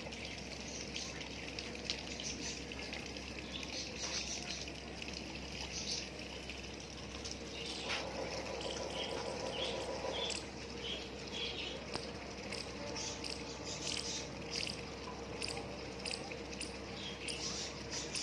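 Rainwater trickling and dripping, with many small irregular drips and ticks.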